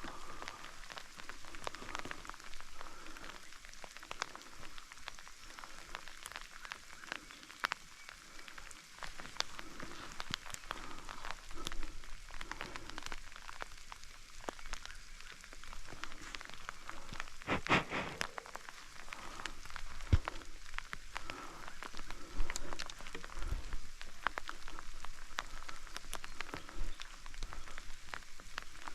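Steady rain falling, with many drops pattering sharply close by. About eighteen seconds in there is a louder brushing rustle.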